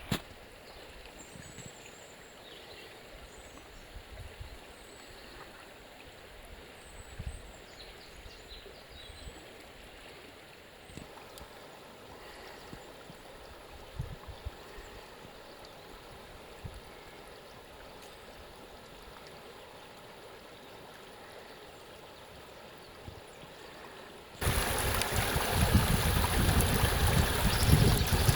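Flowing stream water, quiet at first, with a few faint high chirps in the first third. About 24 seconds in it abruptly becomes much louder and fuller rushing water.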